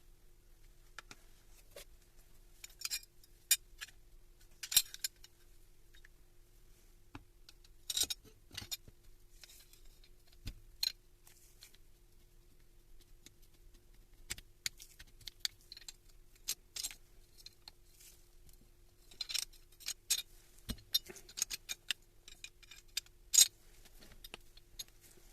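Small metal parts and tools being handled, giving scattered sharp clicks and clinks at irregular intervals, with a faint steady hum underneath.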